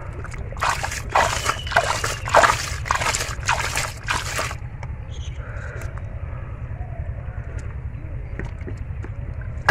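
Water splashing and sloshing: a quick run of about eight splashes in the first half, then only small water sounds, over a steady low rumble.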